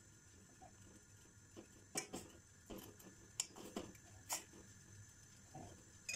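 Metal spoon knocking and scraping against a stainless steel saucepan while stirring clumps of spinach: a few scattered, irregular clinks.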